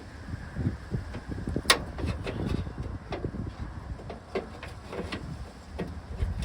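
Irregular clicks and knocks of a replacement interior car door handle being fitted into the door by hand, with one sharp click about a second and a half in.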